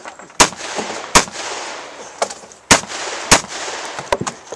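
Rifle gunshots on a shooting range: about five loud shots at uneven intervals, with a couple of fainter ones between, each trailing off in echo.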